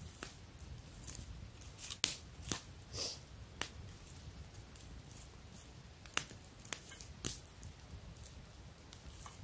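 Campfire of pine limbs crackling, with a series of irregular sharp pops, the loudest about two seconds in.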